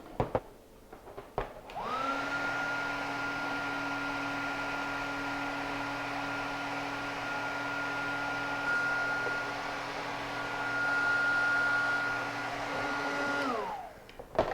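Heat gun running: two clicks, then its fan motor starts with a steady whine and blowing noise, runs for about twelve seconds shrinking a self-solder heat-shrink butt connector, and is switched off, the whine falling as the fan spins down.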